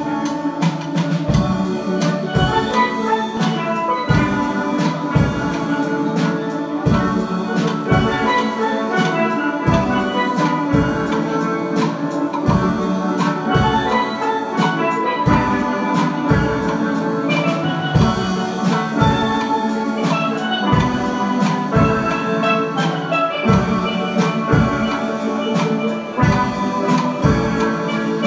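Steel band playing: a mass of steelpans sounding many pitched notes over drums that keep a steady beat.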